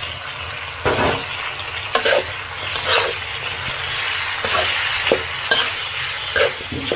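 Duck stir-frying for pad kra pao, sizzling steadily in a hot pan, with a spatula scraping and clattering against the pan about once a second as it is stirred.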